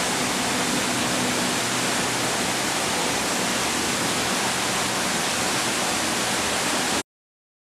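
Steady rush of falling water, even and unbroken, cutting off suddenly about seven seconds in.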